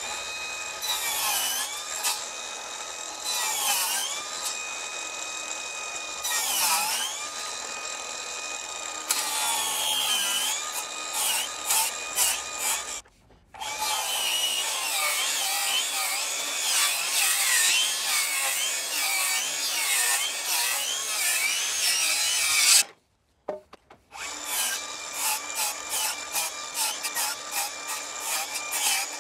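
Hercules 20V brushless 7-1/4 in cordless circular saw ripping through pine boards. The motor whine sags in pitch each time the blade bites into the wood, then recovers. It runs on in long cuts with a couple of brief breaks.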